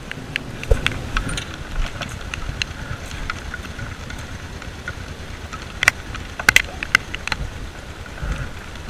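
A metal licence plate and a motorcycle tank bag being handled: scattered clicks and knocks, several close together about six seconds in, over a low steady rumble.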